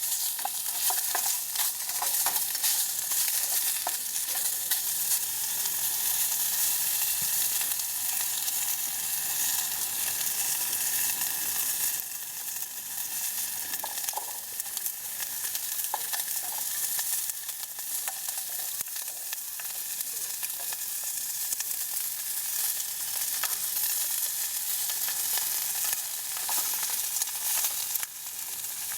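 Food sizzling in a hot pan, a steady crackling hiss with a few light clicks in the first couple of seconds.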